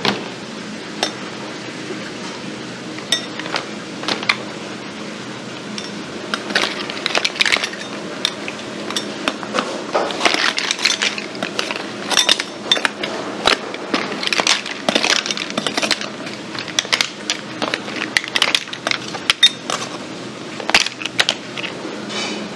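Abalone shells clattering and clinking against one another and a plastic tray as they are scraped off with a knife: many quick sharp clicks, few at first and dense after the first few seconds. A steady low hum runs underneath.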